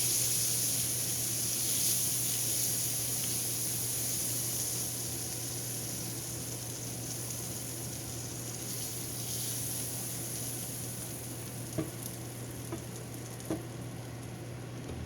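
Butter sizzling in a hot pan, the sizzle slowly easing off, with a couple of light knocks near the end.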